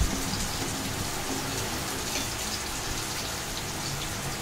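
Roasted spice mixture sizzling and crackling in a hot aluminium kadhai as it is stirred with a wooden spatula: a steady hiss with small scattered crackles.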